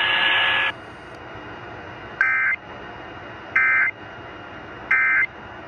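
Emergency Alert System end-of-message code over the radio: three short, identical buzzing digital data bursts about a second and a half apart, signalling that the alert is over. Before them, a hiss with a steady tone cuts off under a second in.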